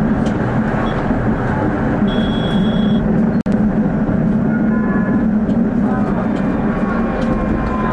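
Prague city tram running along street track, heard from inside: a steady rumble of motors and wheels on rail. A brief high, steady tone sounds about two seconds in, and the sound drops out for an instant about three and a half seconds in.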